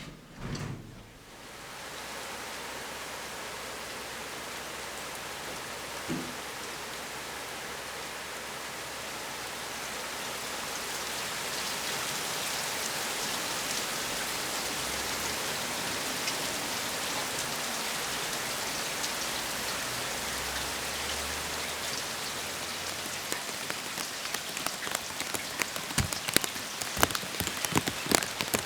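Rain falling steadily as an even hiss that sets in within the first two seconds and grows heavier partway through. In the last few seconds, sharp ticks of heavier drops hitting a hard surface come in quick succession.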